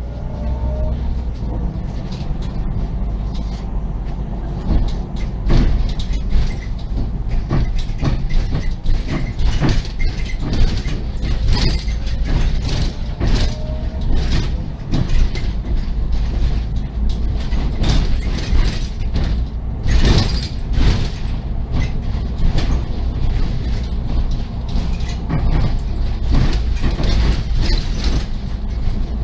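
Inside a SOR NB 12 city bus on the move: a steady low rumble of engine and road, with frequent rattles and creaks from the body and fittings, thickest from about five seconds in. A brief rising whine near the start.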